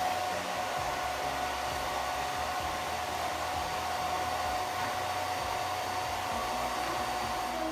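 Handheld blow dryer running steadily on its low warm setting, blowing into a soft bonnet hood attachment: an even rush of air with a faint steady whine.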